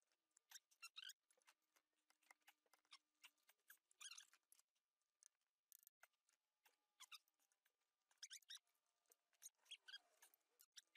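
Near silence with faint, irregular clicks and small squeaks of hand tools: a socket, breaker bar and ratchet being worked on the flywheel bolts during their final 90-degree angle turn.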